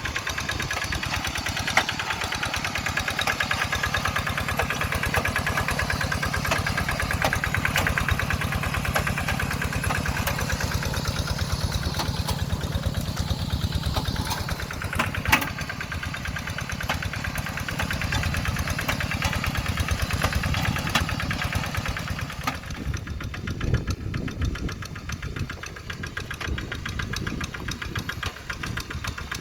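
Single-cylinder Kubota RD85DI-2s diesel engine of a two-wheel hand tractor running steadily with a rapid, even firing beat. About two-thirds of the way through its sound turns lower and heavier, and there are a couple of sharp clicks along the way.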